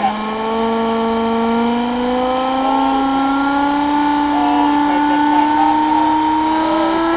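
Homemade steam engine running under a blast of steam, a steady whine that climbs slowly in pitch as it speeds up, over a hiss of escaping steam.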